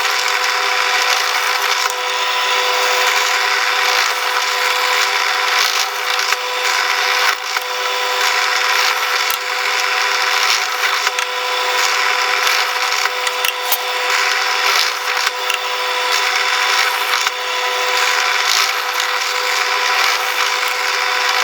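Electric drill running at full speed with a steady motor whine, its bit rasping as it cuts through wooden strips.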